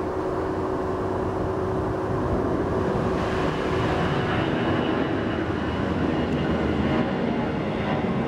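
Jet engines of a Delta Boeing 757 at takeoff power as it climbs out overhead, a steady rumble with a high whine that comes in about three seconds in.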